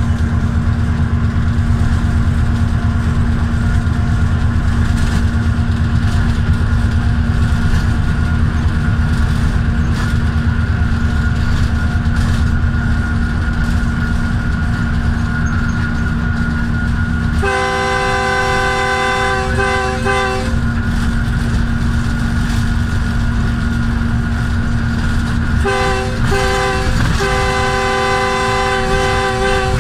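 A GEU-40 diesel-electric locomotive running steadily under way, heard loud and close from the leading unit. Its multi-tone air horn sounds one blast of about three seconds a little past the middle, then near the end two short blasts and a long one.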